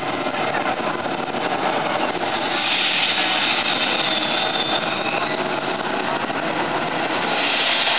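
Modified pulling tractor running flat out as it hauls the weight-transfer sled down the pulling track: a loud, steady engine noise with a high whine that sags slightly in pitch about halfway through.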